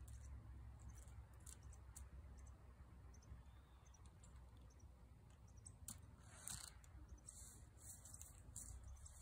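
Near silence: a faint steady low hum with scattered faint clicks and ticks.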